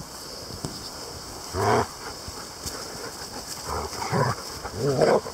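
Dogs growling in three short low, wavering bouts during rough play, the last near the end the loudest.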